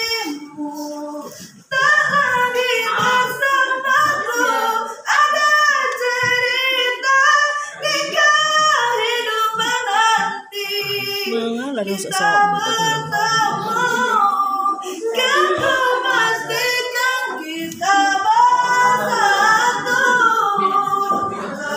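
A girl singing a song solo, her sung phrases rising and falling with short breaks between them, including a brief pause about a second and a half in.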